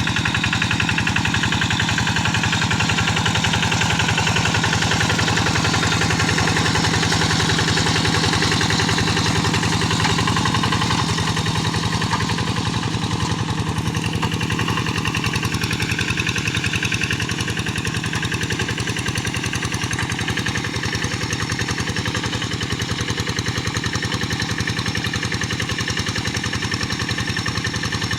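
Quick G1000 hand tractor's single-cylinder diesel engine chugging steadily under load while harrowing wet paddy mud. Its note shifts slightly about twelve seconds in.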